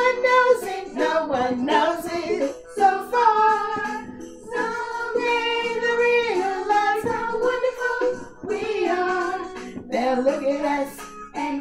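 Upbeat children's song playing, with voices singing sustained, changing notes over the backing music.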